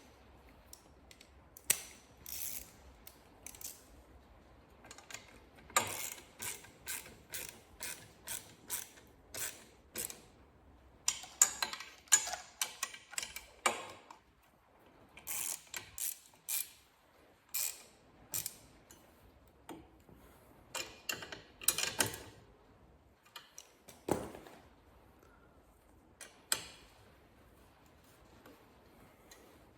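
Ratchet wrench clicking in several runs of quick, even clicks with pauses between, and a few sharper knocks of tool on metal among them, as a mounting bolt is worked.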